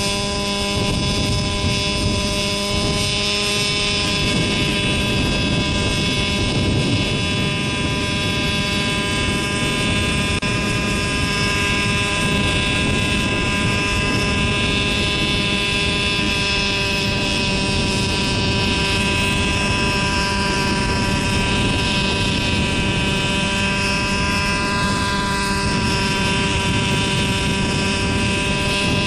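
JR Ergo radio-controlled helicopter's small gasoline engine, fitted with a BH Hanson exhaust, running at a steady speed with its rotors turning, in a ground run before lift-off. The pitch holds steady throughout.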